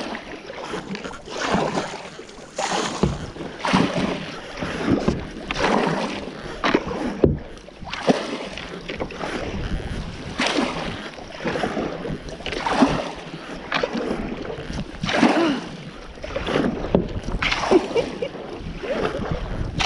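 Kayak paddle strokes through choppy water, a splashing swish every two seconds or so, with wind rumbling on the microphone at times.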